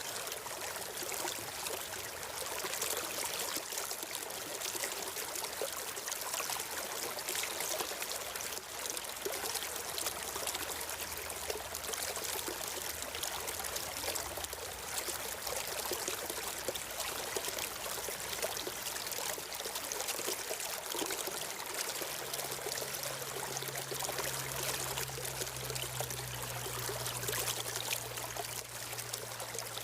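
Stream water flowing steadily, an even rushing babble without pauses.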